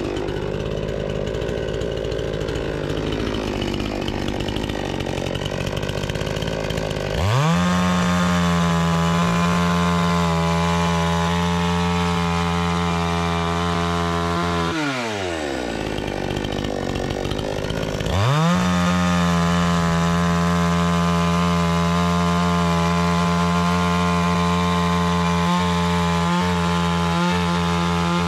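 Dnipro-M two-stroke petrol chainsaw ripping a log lengthwise along the grain. The engine runs lower and unsteady for the first several seconds and revs sharply up to a high steady pitch about seven seconds in. It drops back near fifteen seconds, then revs up again near eighteen seconds and holds.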